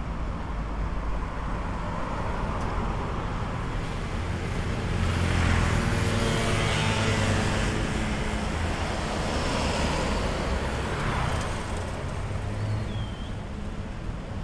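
Road traffic on a busy city avenue: steady engine and tyre noise, with one vehicle passing close, loudest about six seconds in, and another going by a few seconds later.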